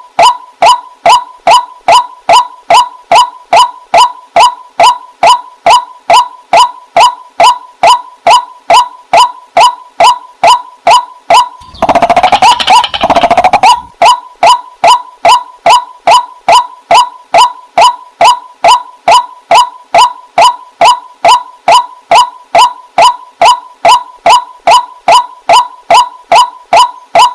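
Waterhen calling: a fast, monotonous run of short, clipped notes, about three a second, with a louder, rougher burst of calling about twelve seconds in.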